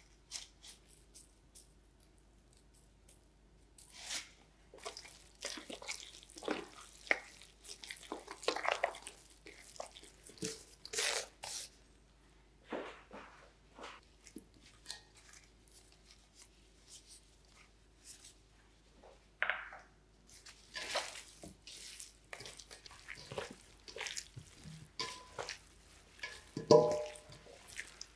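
Irregular wet squishing and rustling of food being handled by hand, with scattered light knocks and a brief ringing clink near the end.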